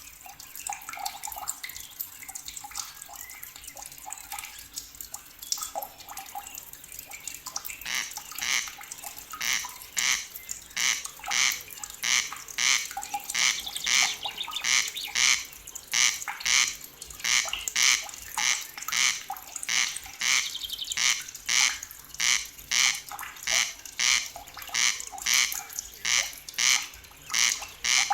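An animal's loud pulsed call repeated in a steady, rapid rhythm, starting about eight seconds in over faint forest ambience.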